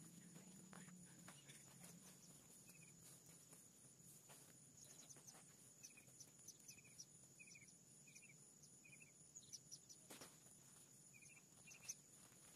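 Near silence: faint outdoor ambience with a steady high insect drone, a string of short faint chirps through the middle, and a few soft knocks near the end.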